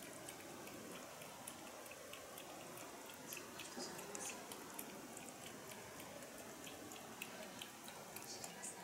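A cat lapping water from its bowl: a quick, irregular run of small wet ticks and drips, several a second.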